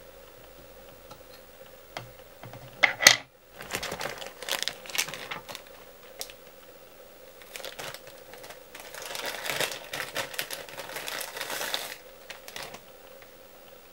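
Small handling clicks at the fly-tying bench, with one sharp click about three seconds in that is the loudest sound, then a plastic packet of bucktail crinkling for about three seconds near the end.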